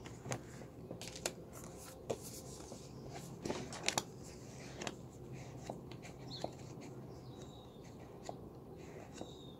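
Quiet handling noises from a tarot card and a paperback guidebook: scattered light clicks and rustles, with a couple of sharper ticks about three and a half to four seconds in, over a faint steady low hum.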